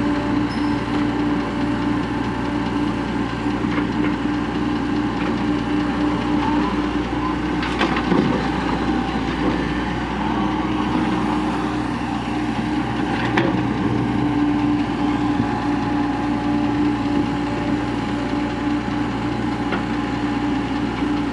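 Tracked excavator's diesel engine running steadily under load, with a constant droning tone and two brief knocks, one about 8 seconds in and another about 13 seconds in.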